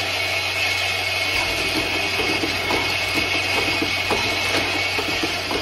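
Automatic capping line with a vibratory bowl feeder running: a steady hum under a constant light rattle and clicking of plastic caps.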